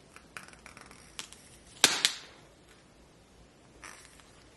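Duct tape being pulled off the roll and wrapped around a short piece of PVC pipe: a few faint crackles, then two sharp snapping rips close together about two seconds in, and a softer one near the end.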